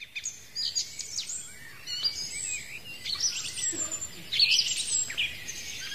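Birds singing: many quick, high chirps and whistles overlapping in a dense chorus, beginning abruptly.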